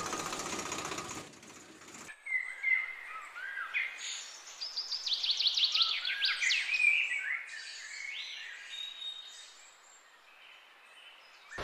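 Small birds chirping and singing, with a quick run of repeated falling notes in the middle. About a second in, a dense engine-like noise cuts off before the birds start.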